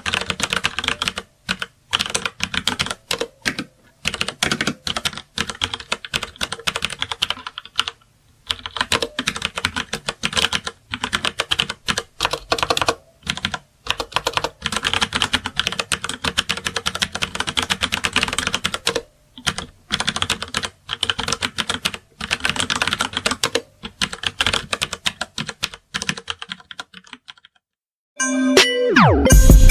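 Computer keyboard typing: rapid, continuous keystrokes in long runs broken by short pauses. The typing stops a couple of seconds before the end, and after a moment of silence loud music starts.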